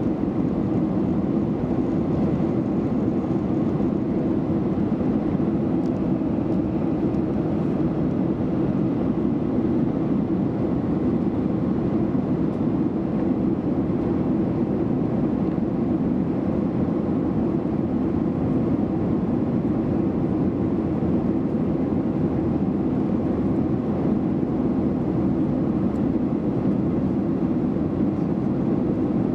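Steady cabin noise of a passenger plane in flight: an even, deep rush of engines and airflow heard from inside the cabin, with no change throughout.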